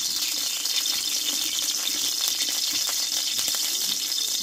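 Oil sizzling steadily in an aluminium kadai as bay leaves, dried red chillies and whole garam masala fry in it for a tempering (phoron), with small crackles throughout.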